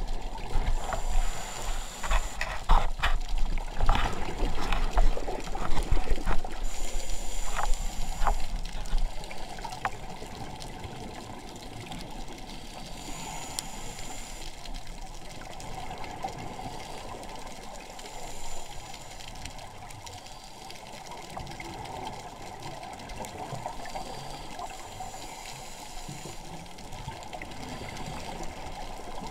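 Underwater sound picked up through a diving camera's waterproof housing: a muffled rush of water with irregular knocks and clicks for the first eight or nine seconds, then a quieter, steady hiss.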